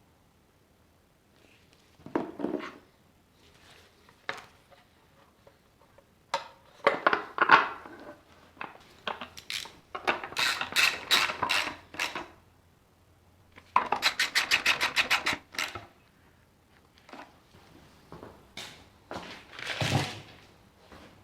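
Metal hand tools clinking against the aluminium engine casings, with two runs of rapid, even ratchet clicks as cover bolts are run in and tightened.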